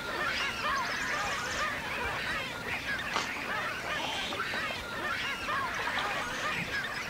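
A dense chorus of many animals calling at once: short rising-and-falling calls overlap without a break.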